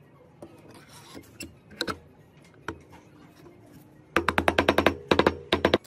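A mallet rapidly tapping the aluminium crankcase cover of a small four-stroke engine down into place over the crankshaft. A few single knocks come first, then about a second and a half of quick taps, about ten a second, in three short bursts, each with a short metallic ring.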